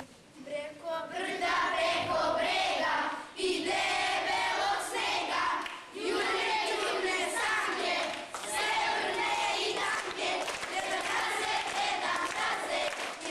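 A large group of children singing together loudly in phrases, starting about a second in, with short breaks between lines.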